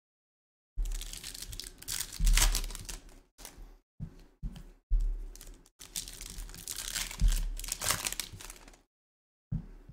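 Foil wrappers of Topps Chrome Formula 1 trading card packs being torn open and crinkled by hand, in a run of rustling bursts with brief gaps. The loudest tears come about two seconds in and again about seven seconds in.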